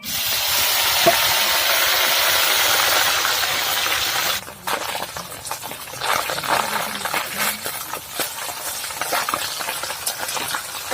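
Food dropped into hot cooking oil: a sudden loud sizzle that holds for about four seconds, then settles into lower, crackling frying with scattered pops.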